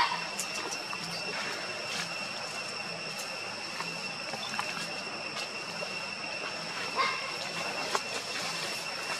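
Steady high-pitched insect drone, typical of cicadas, holding two constant tones, with faint scattered clicks and rustles. A short rising squeak sounds at the very start.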